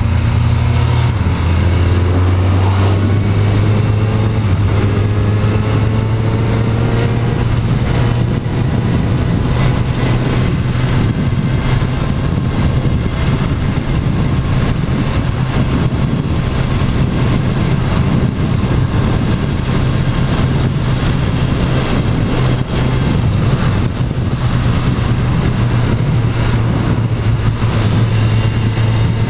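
Kawasaki Z motorcycle's engine running under way, its pitch rising over the first several seconds as it accelerates, then holding steady at cruising speed.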